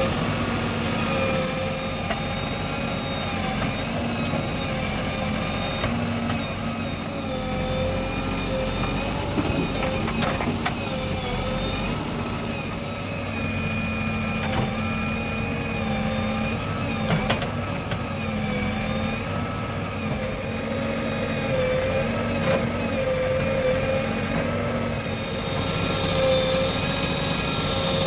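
Diesel engines of a JCB 3DX backhoe loader and a Swaraj 843 XM tractor running steadily, the engine note wavering slightly up and down, with a few brief knocks.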